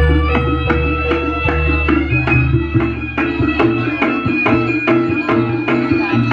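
Javanese jaranan music: drums struck at a quick, steady beat over sustained ringing tones from gong and metal-keyed instruments.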